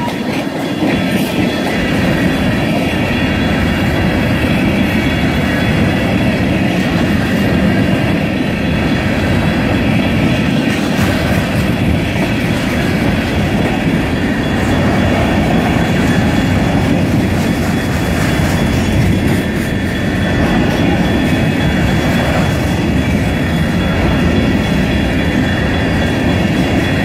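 Freight train of covered hopper cars rolling past at close range: a steady rumble of steel wheels on rail with clattering over the rail joints, and thin high-pitched tones held above it.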